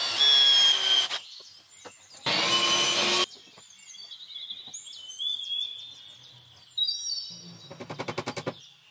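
Handheld electric drill boring into a wooden jig piece in two short runs, about a second each, with birds chirping in the pause that follows. Near the end comes a fast run of sharp hammer knocks on the wood, about nine a second.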